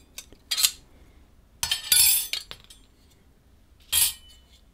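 Bicycle chainrings and their chainring bolts clinking as the rings are handled and lifted off the spider. There is a clink about half a second in, a longer clatter around two seconds in, and another clink near the end.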